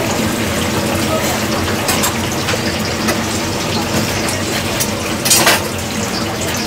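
Water running steadily, with a brief louder noise about five and a half seconds in.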